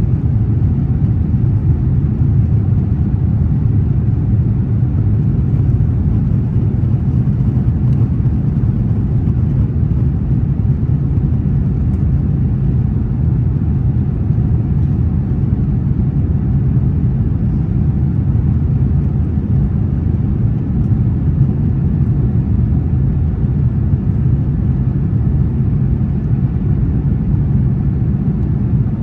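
Steady low cabin noise of an airliner in flight: engine drone and rushing airflow heard from inside the passenger cabin, even and unchanging.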